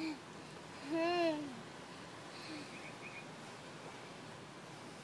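A young child's short vocal sound, one rising-and-falling 'uhh' about a second in, made while he strains to climb. A fainter one follows a little later, with faint high chirps in the background.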